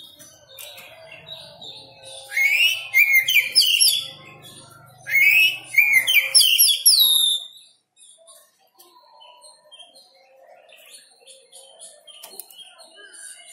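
Caged songbird singing: two loud runs of quick, sweeping whistled notes a couple of seconds in and again near the middle, with softer scattered chirps between and after.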